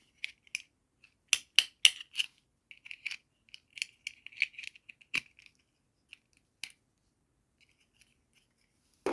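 A quick, irregular series of light, sharp plastic clicks and taps, as small toy pieces and packaging are handled during an unboxing. The clicks thin out after about five seconds.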